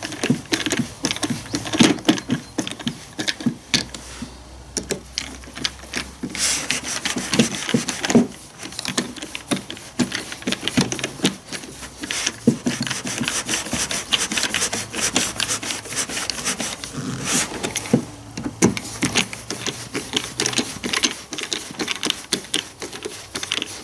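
Hand screwdriver driving screws into a battery chainsaw's plastic housing: rapid, irregular clicking and scraping as the bit turns in the screw heads.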